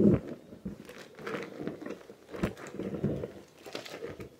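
Soapy wet clothes being scrubbed and squeezed by hand in a tub of sudsy water, with irregular sloshing and squelching. The loudest slosh comes right at the start.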